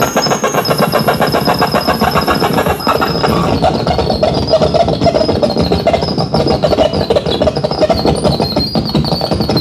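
Harsh electronic noise from a tabletop rig of cabled effects and synth gear: a dense, fast-stuttering machine-like drone with a thin high whine riding on top, shifting as the knobs are turned.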